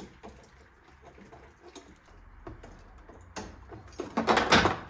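Small clicks and taps of hands and tools working spring hose clamps and coolant hoses in a car's engine bay, with a louder rough scraping rush about four seconds in.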